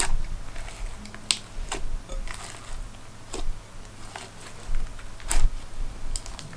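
A mix of glitter and foam-bead slimes being squeezed and kneaded by hand in a glass bowl, giving irregular squishy clicks and pops, about one or two a second.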